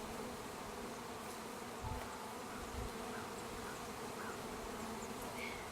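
Many freshly installed package honeybees buzzing in a steady hum, with two faint low knocks about 2 and 3 seconds in.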